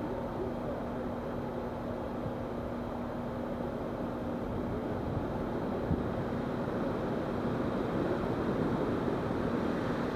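Vehicle engine idling: a steady low rumble with a constant low hum.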